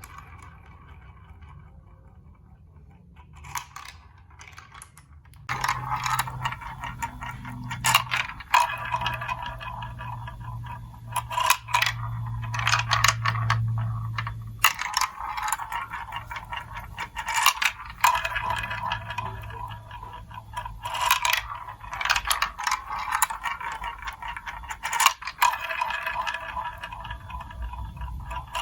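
Glass marbles rolling and clattering through a plastic building-block marble run, with many sharp clicks and clacks. It is quieter at first and becomes a louder, continuous rolling rattle about five seconds in.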